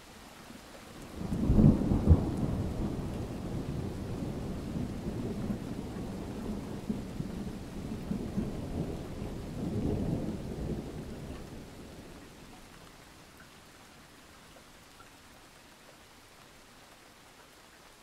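A thunderclap breaks about a second in and rolls on as a long, low rumble that swells again around ten seconds before fading away, with steady rain falling underneath.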